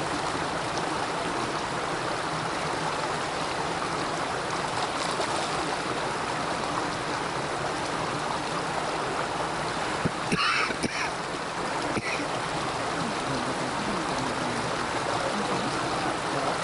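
Creek water rushing steadily over a small log step and churning into the pool below. A brief louder sound about two-thirds of the way through.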